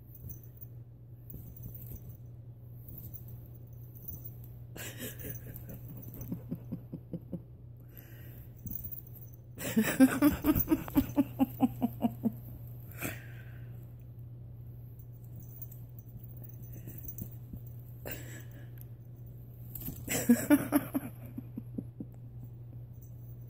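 A woman laughing in quick rhythmic bouts, once about ten seconds in and again near the end, with rustling and crinkling from a crinkle-lined fabric cat cube as a cat plays inside it. A steady low hum runs underneath.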